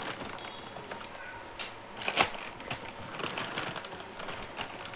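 Plastic packaging of a motorcycle timing chain kit crackling and rustling as it is opened and handled, with scattered light clicks and a few sharper ones about two seconds in.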